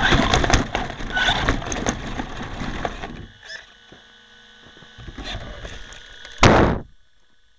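Onboard-camera audio of a two-wheel-drive Traxxas Slash RC truck clawing up loose rock: tyres spinning and gravel crackling against the chassis, then it goes quiet but for a steady electrical hum. About six and a half seconds in comes one loud short crash as the truck tips over, and then only the hum remains.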